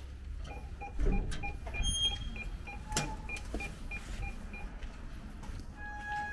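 Rapid electronic beeping, about six short beeps a second, from the lock panel of a building's entrance door as it is opened from inside. There is a heavy thud about a second in and a sharp click about three seconds in as the door is pushed open and swings. A single longer beep sounds near the end.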